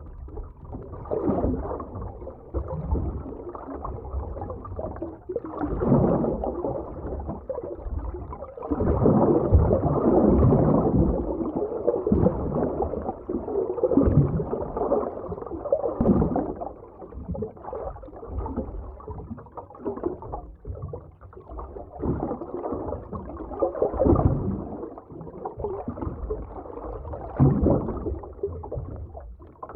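Underwater ocean ambience: muffled surging water and gurgling bubbles, swelling and fading every few seconds.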